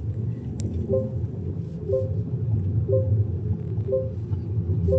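Seatbelt reminder chime of a GAC Aion V electric SUV, a short two-note chime repeating about once a second, five times, warning that the driver's belt is unfastened. Under it, a steady low road and tyre rumble inside the moving car's cabin.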